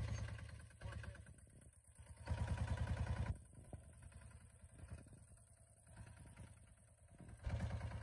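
Walk-behind tractor engine running as it pulls a fan-type potato digger through the soil, faint and coming and going, loudest for about a second between two and three seconds in.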